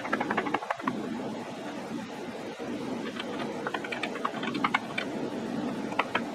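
Light, irregular clicks and taps as a table saw's rip fence is nudged a few thousandths of an inch at a time against a dial indicator, in a cluster at the start and then scattered from about halfway on.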